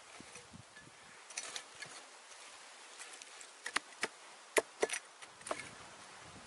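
Small hatchet chopping into dry earth and roots: a few faint strikes, then a quicker run of sharp, short hits in the second half, some in quick pairs.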